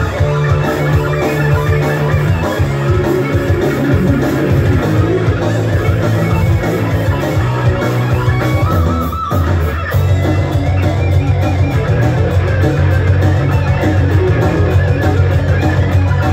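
Heavy metal band playing live: electric guitar over bass and drums, with a brief drop in the music about nine seconds in.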